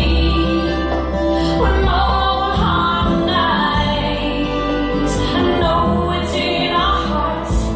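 Music: a slow song's melody line, gliding in pitch, over sustained deep bass notes, with no words sung.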